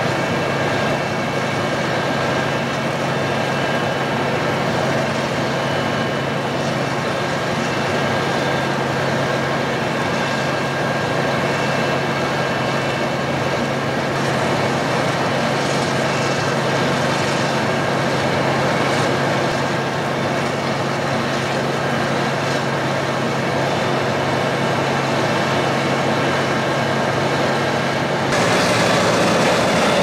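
Large farm tractor's diesel engine running steadily while hauling a loaded silage trailer, a constant low hum with little change. About two seconds before the end a louder machine takes over: a Claas Jaguar forage harvester chopping maize.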